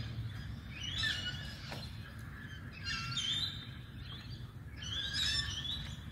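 A songbird singing short warbling phrases, repeated about every two seconds, over a steady low background rumble.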